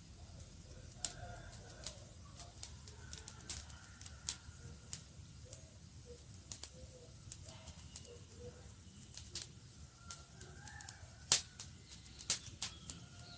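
Campfire crackling: wood burning with irregular sharp pops and snaps, the loudest snap about eleven seconds in, over a low steady rumble of the flames.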